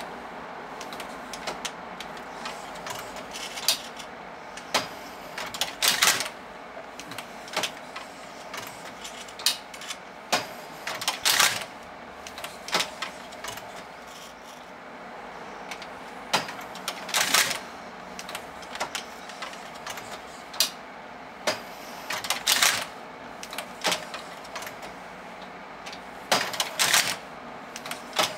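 Singer/Superba knitting machine carriage pushed by hand along the needle bed, a steady rasping of the carriage over the needles. Clusters of loud clacks come about every five to six seconds, as the carriage reaches the colour changer at the end of each row.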